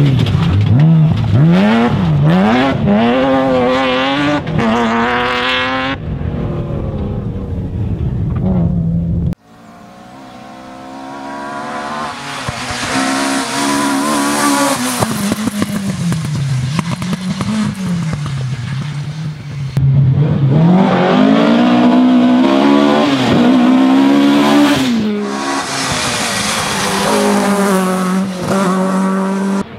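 Rally cars at racing speed. First a BMW E30 M3's four-cylinder engine revs hard, its pitch climbing and dropping with each gear change. After a sudden cut, a Ford Escort Mk2 rally car's engine builds up and revs through its gears in the same way as it approaches and passes.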